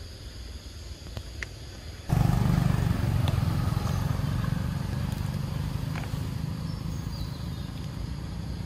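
Motorbike engine going by, cutting in abruptly about two seconds in as a low rumble, then slowly fading. Before it, faint insect hiss.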